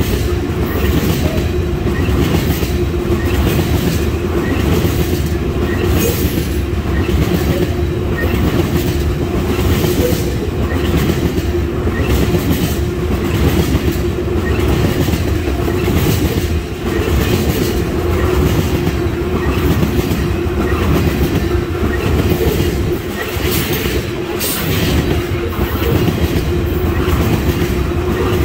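Oil train of tank cars rolling past close by: steady rumble of steel wheels on rail, with regular clickety-clack as wheels cross rail joints and a steady hum underneath.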